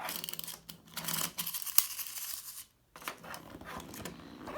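Clockwork mechanism of a wind-up Minion Bob toy clicking rapidly as its white winding knob is twisted, with a brief break about three seconds in.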